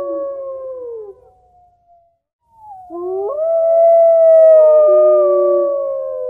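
Dogs howling: long, overlapping howls that slowly fall in pitch. One fades out about a second in, and after a short gap another rises and holds a long, slowly sinking note.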